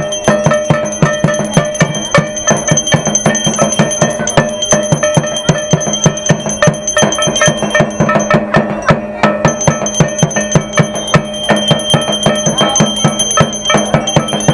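A bell ringing continuously over fast, steady drumbeats on a barrel drum: the music of an aarti.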